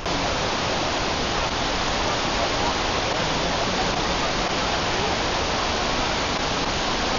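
Kuang Si Falls' cascades: a steady, dense rush of falling water, cutting in suddenly at the start.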